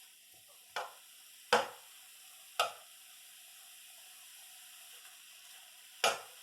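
Stew beef sizzling as it browns in a hot pan, a steady hiss broken by sharp knocks: three in the first three seconds and another near the end.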